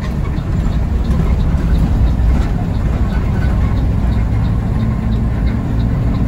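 Intercity bus engine running and road noise, a steady low rumble heard from inside the cabin, with faint regular ticking about three times a second.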